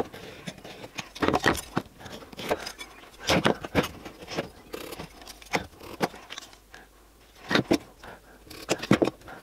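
Scattered light clicks and knocks of a metal combination square and plywood boards being set in place and handled on a wooden workbench while a line is marked across them.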